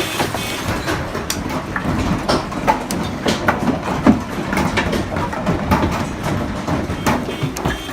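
Hailstones striking hard surfaces, a dense irregular clatter of sharp impacts, some much louder than others.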